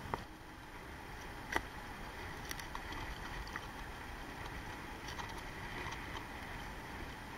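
Rough open-ocean water sloshing and splashing around a camera held low over the waves, with a steady low rumble and one sharp knock about a second and a half in.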